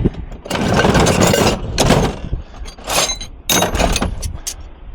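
Rummaging through a box of brass ornaments and tools: scraping and rustling for the first couple of seconds, then several metallic clinks with a brief ring.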